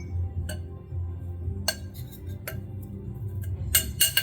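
Utensils clinking against a mixing bowl: about six sharp clinks, the two loudest close together near the end, over a low steady hum.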